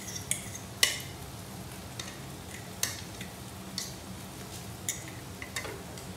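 A spoon scraping and tapping flaked steamed fish off a plate into a nonstick wok: several sharp clicks, roughly one a second, over a low steady hum and a faint sizzle.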